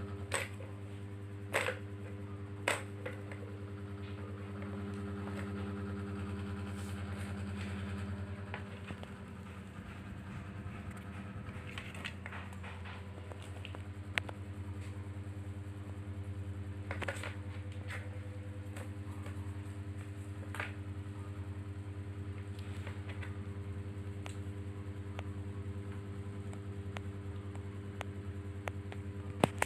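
Plastic balls clicking and knocking now and then in a plastic ball-track cat toy as a kitten paws at it, over a steady low hum.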